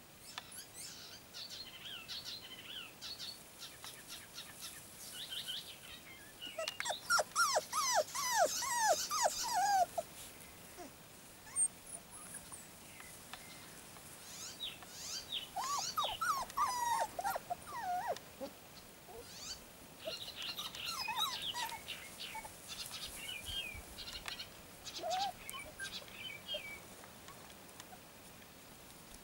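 Young puppies, about four and a half weeks old, yelping while they play-fight: several runs of short, high yelps that fall in pitch, the loudest run about a quarter of the way in.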